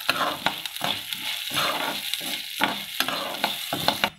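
Urad dal roasting in a little oil in a kadai, a steady sizzle, with a slotted metal spoon scraping and clinking against the pan about two to three times a second as the dal is stirred.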